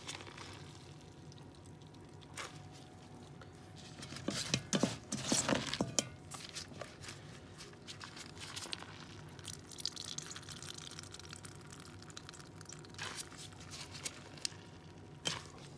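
Water squeezed out of salted, rinsed cabbage dripping and splashing into a plastic colander as handfuls are wrung in gloved hands. The splashes come in scattered bursts, loudest about five seconds in.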